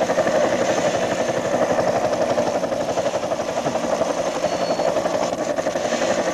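Helicopter in flight: the rotor's rapid, steady chop over the engine's drone.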